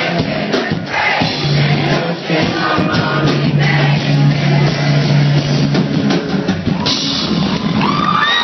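Loud live rap music over a concert sound system, heard from the crowd: a drum beat and a deep bass note held for several seconds, with vocals over them. Crowd shouts rise near the end.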